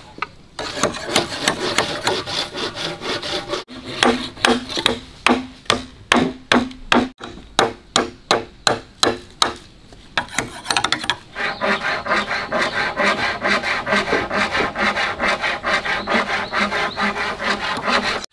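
Fast rhythmic scraping strokes, as of a hand tool worked against wood, with a short pause about ten seconds in.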